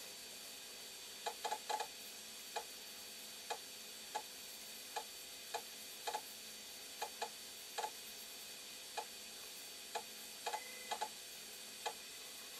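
Ultimaker 2 3D printer's front control knob clicking step by step as it is turned, about twenty short ticks at uneven intervals, some in quick pairs, as the build plate is adjusted during bed levelling. A faint steady hum runs underneath.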